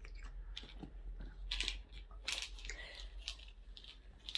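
Something being handled at close range: several short, sharp clicks and crinkles at irregular intervals, over a steady low hum.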